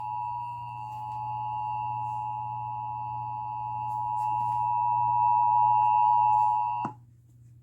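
Emergency Alert System attention tone: a steady electronic alarm of several close pitches, growing louder and cutting off suddenly about seven seconds in, with a low hum underneath. It signals that an emergency alert message follows.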